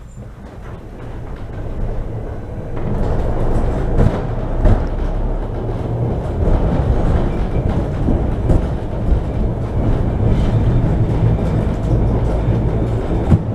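Budapest cog-wheel (rack) railway car running, heard from inside the car: a steady rumble and low motor hum with rattling and sharp clicks. It grows louder over the first few seconds, and there are two sharp knocks a little after the middle.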